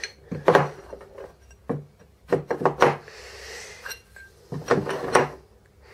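Aluminium plates clinking against each other and knocking down onto a wooden table as they are set upright, in several short clusters of knocks.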